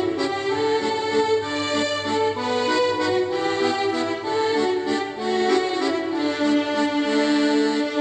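Instrumental background music: a melody over sustained held notes, without singing.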